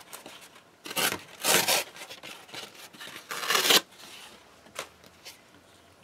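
Black corrugated, cardboard-like scrapbooking paper with a kraft core being torn by hand in several rips: two short ones about a second in and a longer, loudest one at about three and a half seconds, with a small one near the end.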